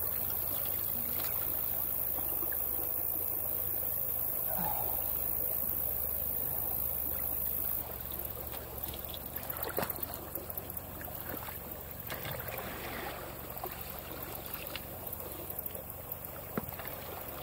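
Shallow water sloshing and splashing as a person wades and drags a long-handled rake through sticks and mud at a clogged drain outlet. A steady wash of water gives way about halfway through to frequent short splashes and knocks from the rake strokes.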